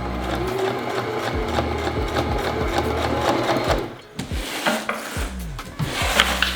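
Electric sewing machine stitching binding edging onto screen mesh around a curve, running in a steady burst that stops about four seconds in.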